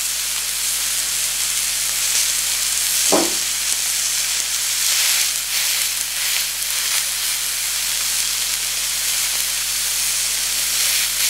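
Beef tenderloin steaks sizzling steadily as they sear on a hot flat pan over a high gas flame, pressed down with tongs to brown the paler sides. The sizzle swells and eases, with one brief short sound about three seconds in.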